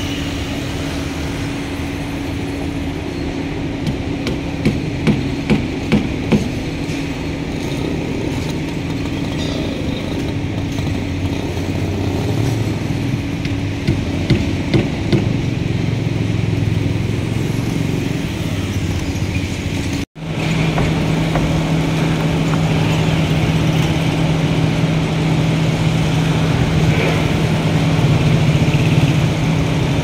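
Construction-site and traffic noise: a steady engine hum with a run of five sharp knocks about five seconds in and a few more around fifteen seconds. The sound cuts out for an instant about twenty seconds in, then a lower steady hum carries on.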